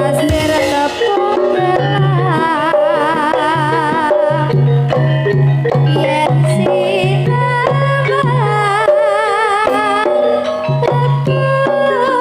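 Javanese campursari music played live: a kendang hand drum beats a busy rhythm under gamelan-style instruments, with a steady low note repeating in short blocks and a melody wavering with heavy vibrato over the top.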